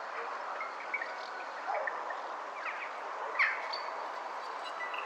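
Forest ambience: a steady even hiss with a few short bird chirps and calls scattered through it, the loudest about three and a half seconds in.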